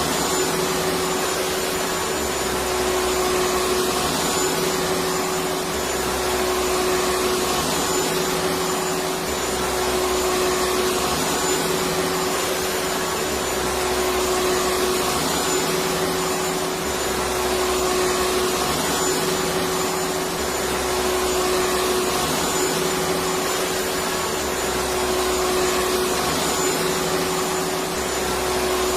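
Electric vacuum cleaner running steadily: an even whooshing hiss over a constant hum, with a slow low pulsing about every two seconds.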